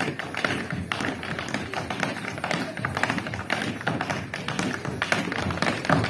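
Tap-dance steps: tap shoes clicking in fast, dense rhythmic runs, with music playing behind them.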